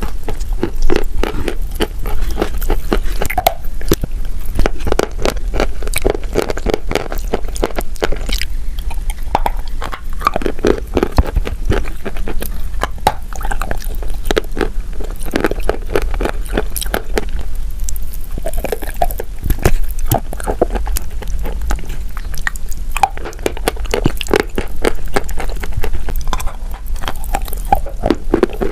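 Close-miked biting and chewing of wet chalk coated in creamy paste: a dense, uneven run of crunches and soft wet squishes.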